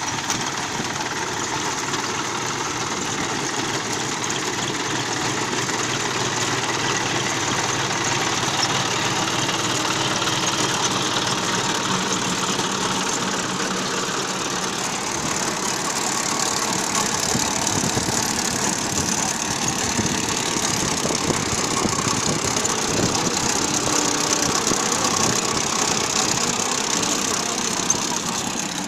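Tractor engine running steadily while working an onion harvester, with a fast, even engine beat.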